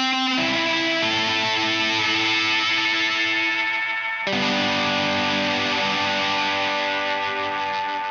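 Electric guitar played through the Tempus Fuzz, a fuzz and echo pedal built on a PT2399 delay chip: thick, sustained fuzzed notes. A new note or chord is struck at the start and another about four seconds in.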